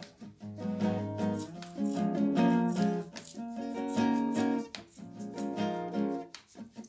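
Background instrumental music, a plucked-string instrument playing a melody.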